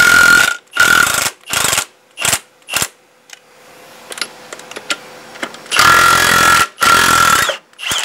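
Milwaukee M18 FUEL cordless impact wrench hammering in bursts. There are several short bursts in the first three seconds and two longer ones near the end as it cracks loose and spins off excessively tight truck wheel nuts.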